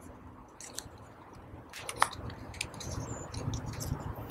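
Paper handling: the Foldscope's cardstock lens stage rustling and tapping as its notches are pushed into slots, with a few sharp clicks, the loudest about two seconds in.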